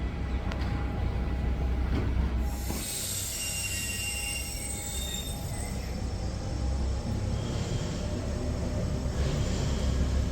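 Metro train running with a steady low rumble, its wheels squealing in a high, multi-toned screech for a few seconds from about two seconds in.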